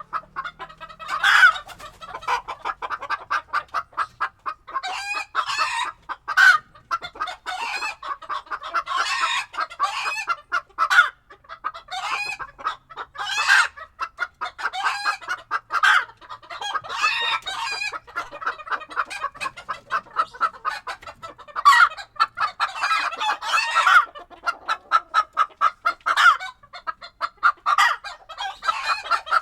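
A flock of chickens clucking busily, many birds calling over one another in quick, short notes, with louder calls standing out every few seconds.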